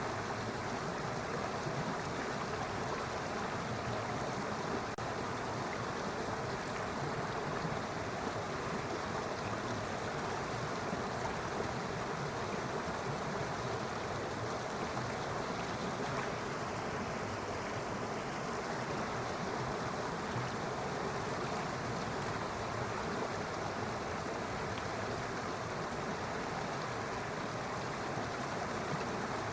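A stream running steadily, a continuous even rush of flowing water.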